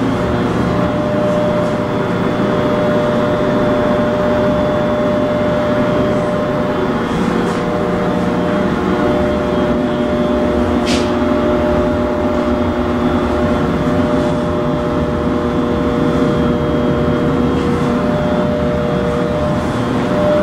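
Loud, steady machinery hum with several unchanging tones and no speech, with one brief high click about eleven seconds in.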